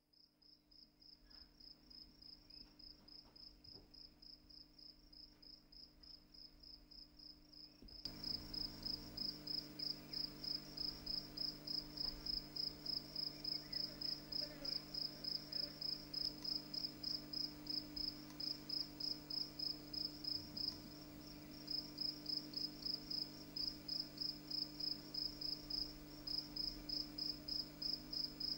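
A cricket chirping in a steady rhythm, about three chirps a second, as a summer nature sound in a stage score. It fades in at the start, grows louder about eight seconds in and pauses briefly near the end, over a faint low steady hum.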